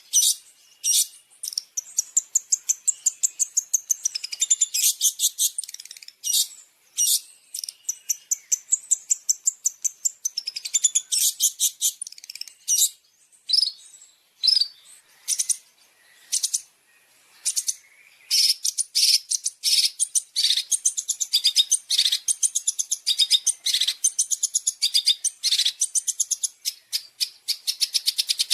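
Long-tailed shrike (cendet) singing a fast, high-pitched run of sharp chirps and trills, with a few short breaks about halfway through.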